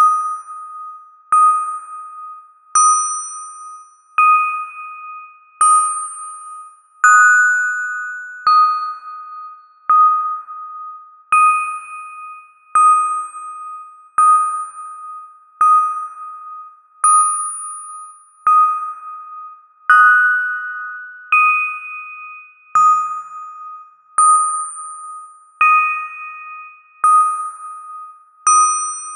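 A bell struck at a slow, even pace, about once every one and a half seconds. Each strike is at the same pitch and rings out and fades before the next: a suspense bell sound effect.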